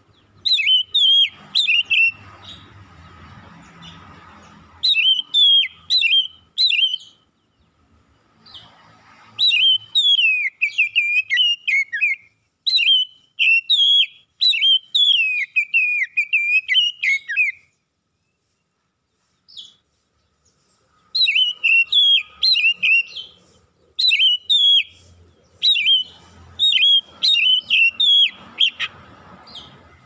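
Oriental magpie-robin singing: bursts of quick, varied whistled phrases, with a few seconds' pause a little past the middle before the song resumes.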